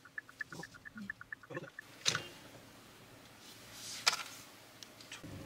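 A rapid run of short electronic beeps, alternating between two pitches at about eight a second, stops about two seconds in. Two sharp clacks follow about two seconds apart, the second ringing briefly.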